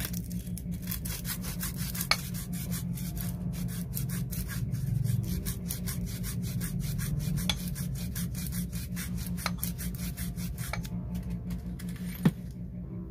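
Sandpaper wrapped around a stick rubbed back and forth over the aluminium cam holder (camshaft bearing cap) of a Honda RS150 DOHC cylinder head, in quick, even strokes several times a second, taking down the bearing surface where the camshaft binds. The strokes stop near the end, followed by a single sharp click.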